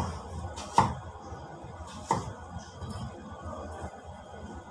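Kitchen knife cutting peeled gourd into cubes on a wooden cutting board: a few sharp knocks of the blade hitting the board, over a low steady hum.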